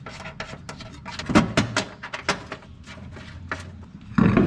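A run of sharp metal clicks and knocks from hand work on a car's front suspension, then one heavy thump near the end as a wheel and tyre is set onto the hub.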